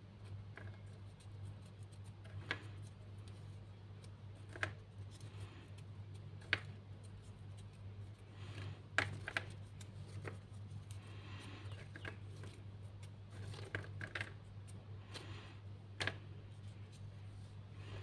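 Cut cardboard toilet-paper-roll rings clicking and scraping lightly as they are handled and set down on a tabletop, irregular taps every second or two, over a low steady hum.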